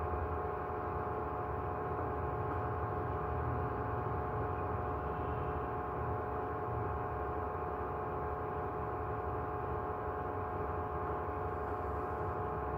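Steady machine hum: several held tones over a low rumble, unchanging throughout.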